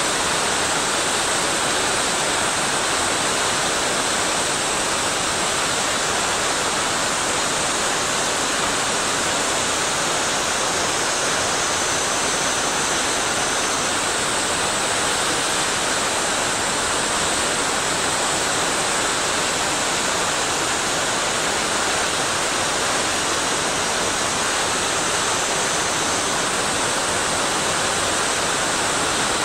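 Fast water falling and rushing over rocks in a mountain stream, a steady even hiss with no let-up.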